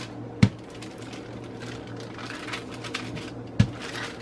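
Wooden rolling pin rolling over dough on parchment paper, a soft rustle with two sharp knocks, one about half a second in and one near the end, over a faint steady hum.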